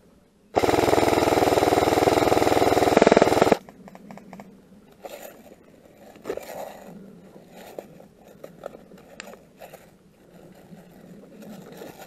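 Airsoft electric gun firing a single long full-auto burst of about three seconds, a very fast, even rattle of shots close to the microphone that stops abruptly. Quieter scattered clicks and rustling follow.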